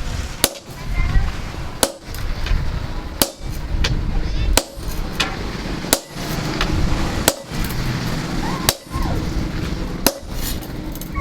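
Hammer striking steel on an anvil at a slow, steady pace, about eight heavy blows each with a short ring, over a steady low rumble.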